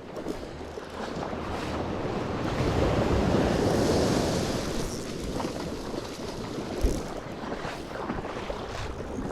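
Surf washing onto the beach, with wind buffeting the microphone; the wash swells to its loudest about three to four seconds in, then eases off. A short low thump near the end of the wash.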